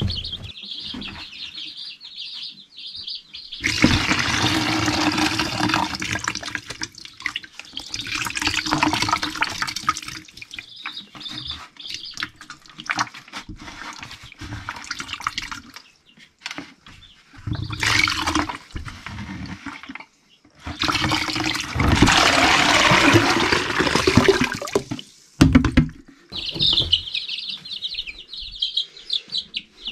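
Water pouring and splashing in several long spells while a plastic chick waterer is emptied over a bucket. Baby chicks peep in the first few seconds and again near the end.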